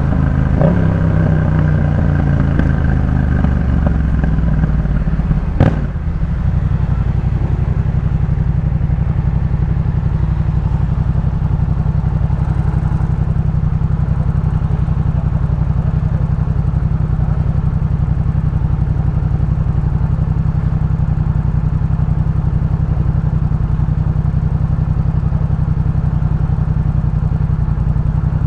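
Yamaha MT-07's parallel-twin engine through a Jeskap K4 full aftermarket exhaust, engine speed falling as the bike slows for the first several seconds, then a sharp click about six seconds in, and after that a steady idle.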